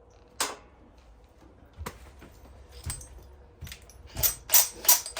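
Sharp metallic clinks of tools and parts being handled on a sawmill's clutch pulley: a few separate knocks, then a quick run of louder clinks, about three a second, near the end.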